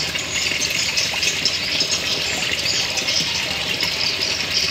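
Steady rush of flowing, trickling water, unbroken throughout.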